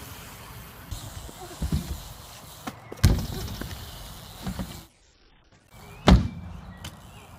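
BMX bikes riding a skatepark: tyres rolling on the surface and several sharp thuds as the bikes land or hit the ramps, the loudest about three seconds in and again about six seconds in. The sound drops out briefly just before the last thud.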